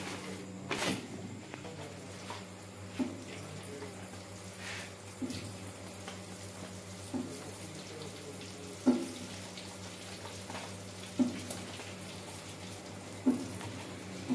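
A steady machine hum with a faint hiss, broken by a short sharp tick about every two seconds.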